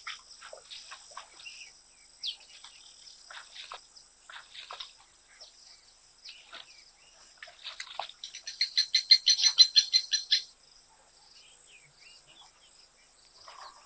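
Wild birds calling: scattered short chirps, and about eight seconds in a fast run of loud repeated notes lasting about two seconds. A steady high-pitched whine runs behind them.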